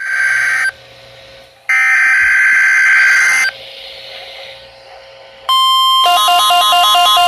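Emergency Alert System SAME header: two bursts of screechy digital data tones with quieter gaps between them. About five and a half seconds in, a steady alert tone starts, and a rapidly alternating, warbling beep pattern joins it half a second later.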